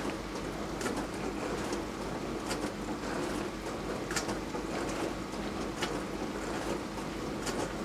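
Beko DWD5410W dishwasher running mid-cycle: water spraying steadily inside the tub over a low pump hum, with occasional sharp ticks.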